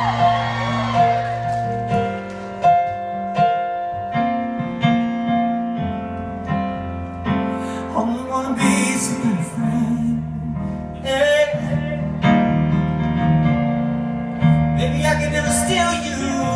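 Live grand piano playing slow, sustained chords, with a man singing a few lines over it about halfway through and again near the end.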